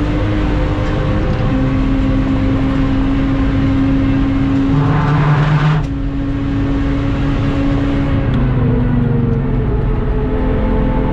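Lexus IS200's 1G-FE 2.0-litre straight-six heard from inside the cabin, running at high, fairly steady revs under hard driving, with wind and road noise; its pitch shifts slightly a few times.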